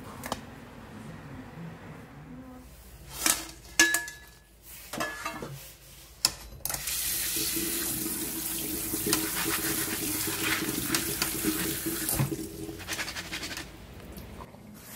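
Tap water running steadily onto dried filefish pieces in a stainless mesh strainer over a steel sink, starting about seven seconds in and stopping near the end. Before it come a few sharp knocks and clatter.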